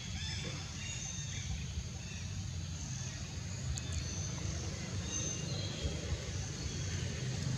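Outdoor background: a steady low rumble with many faint, short, high-pitched chirps scattered through it.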